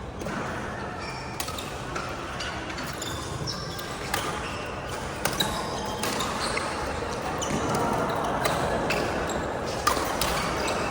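Badminton rally: rackets striking the shuttlecock in sharp cracks, one roughly every second, over steady background noise.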